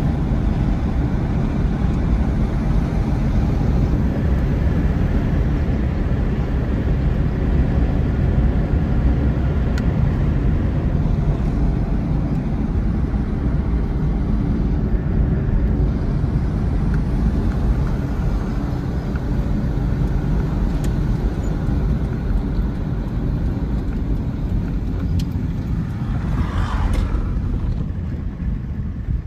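Steady car engine and road noise heard from inside a small car's cabin while driving.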